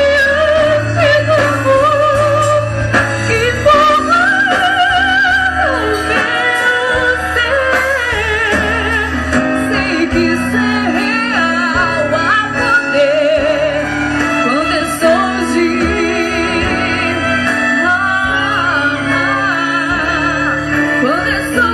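Church orchestra playing a hymn with a solo female voice singing over it, long notes held with vibrato above sustained chords and a steady bass line.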